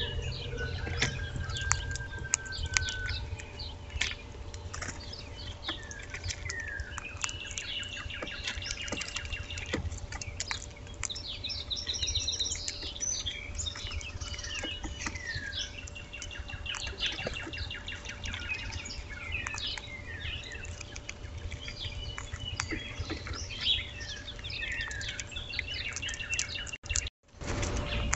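Several songbirds chirping and singing at once, a continuous chorus of short calls and whistled phrases over a steady low rumble. The sound cuts out completely for a moment near the end.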